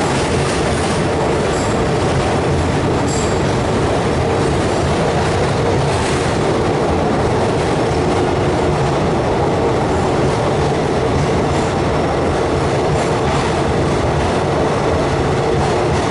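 Express passenger train running through at speed: a steady, loud rumble and clatter of coaches and wheels on the track, with some wheel squeal.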